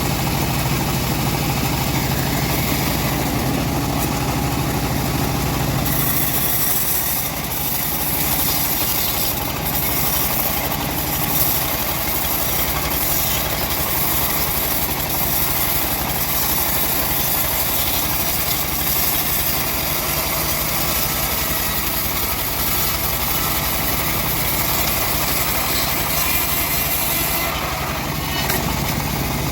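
Engine-driven home-built bandsaw sawmill running steadily. From about six seconds in until near the end, a steady high hiss joins the engine hum as the blade saws through the log.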